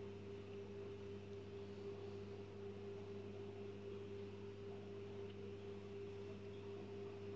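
Faint steady electrical hum: a constant low drone with a couple of higher steady tones above it, not changing in pitch or level.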